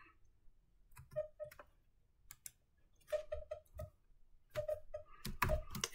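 Computer keyboard keys tapped in an irregular run of light clicks as a line of script is typed.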